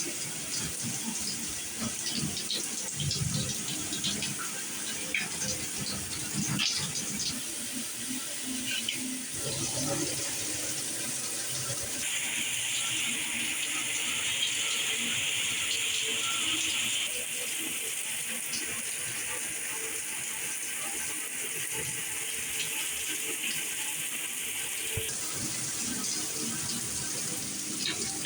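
Mainstays 6-setting plastic showerhead spraying water, a steady rush of spray. Its tone changes abruptly four times as the head is switched between spray settings.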